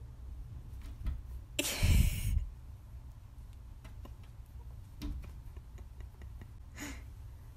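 Two cats pawing at each other through the gap under a door: light scratches and clicks of claws on the door and floor, with a louder scuffle and thump about two seconds in and a shorter scrape near the end.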